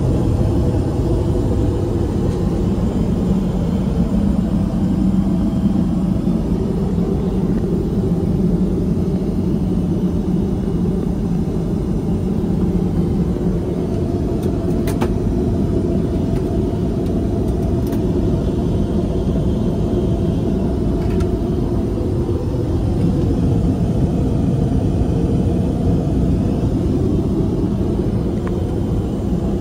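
Steady low rumble of a Boeing 787-10 airliner in flight, heard inside its lavatory, with a couple of faint clicks about halfway through.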